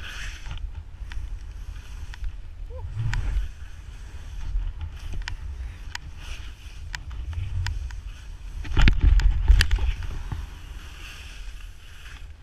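Wind buffeting the microphone of a pole-mounted action camera as a skier skis down through snow, a gusting low rumble with the hiss of skis in the snow and scattered sharp clicks. It is loudest about nine seconds in.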